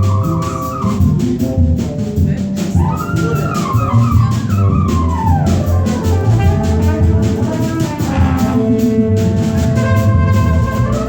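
A small jazz band playing live: a bass line and busy drums and cymbals under a lead instrument whose phrases swoop up and then slide down, with held chord notes.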